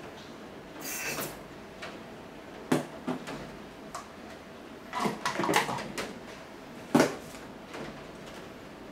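A short hiss of aerosol lubricant spray about a second in, then several knocks and clatters of electric fan parts being handled and fitted, with the sharpest click near the end.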